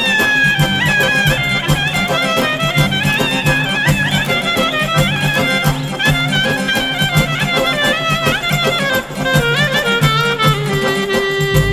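Instrumental folk music: an ornamented, fiddle-like lead melody over a steady beat, settling onto a long held note near the end.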